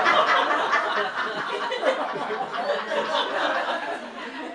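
Comedy club audience laughing. Loud at first, the laughter thins out toward the end.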